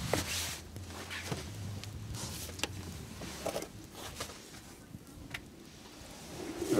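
Scattered knocks, thuds and rustling from someone rummaging through the back seat of a minivan through its open sliding door, with a faint low hum in the first few seconds.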